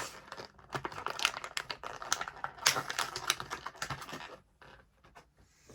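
Irregular small clicks and rustles of a metal diecast figure and its plastic packaging being handled, stopping about four seconds in.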